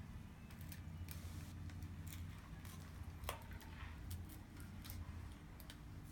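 Faint, scattered light clicks and ticks of a small tool working at a phone's glued back glass as it is prised loose, over a steady low hum.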